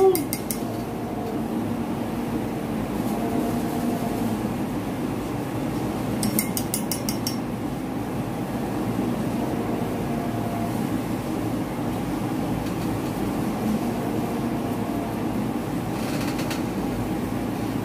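Steady whir of a small electric motor or fan running. About six seconds in and again near the end, brief bursts of rapid fine ticking come from brush bristles being flicked to spatter alcohol onto wet paint.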